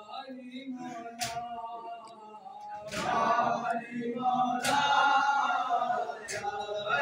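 A group of men chanting a noha (Shia lament) together, with a sharp slap of matam chest-beating about every one and a half to two seconds, four in all. The chanting grows louder about three seconds in.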